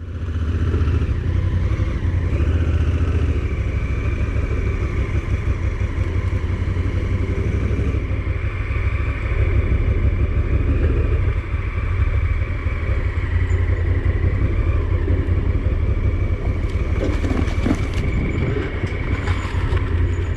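Vehicle engine running steadily, heard on board, starting abruptly after silence, with a few knocks and rattles near the end.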